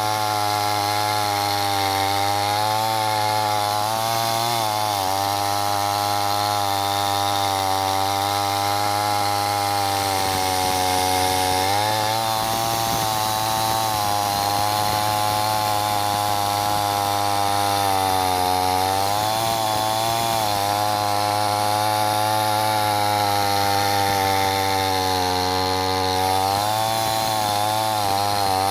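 Chainsaw running continuously while cutting wood, its motor pitch sagging and recovering several times as the cut loads it.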